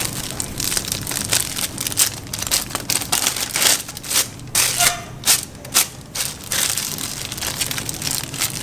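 A thin plastic bag being handled and scrunched, crinkling in an irregular run of sharp rustles, with the loudest quick bursts a little past the middle.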